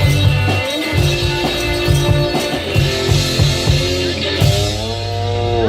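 One-man band playing a rock tune: guitar and bass lines on a combination guitar-bass instrument over a drum beat played with the feet on a pedal board. Notes bend in pitch near the end.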